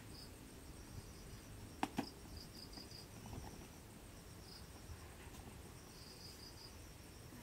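Faint insect chirping: short high chirps in small groups every second or two. There are two sharp clicks close together about two seconds in.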